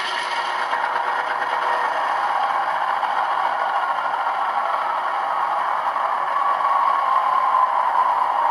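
Simulated GE Dash 8 diesel prime mover from an ESU LokSound Select sound decoder, playing through an HO scale model locomotive's small onboard speaker: a steady, rattly engine drone with no deep bass, growing a little louder about six seconds in.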